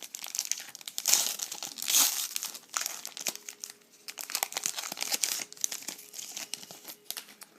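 Wrapper of a trading-card pack crinkling as the pack is cut open and handled, a dense irregular crackle with louder bursts about one and two seconds in.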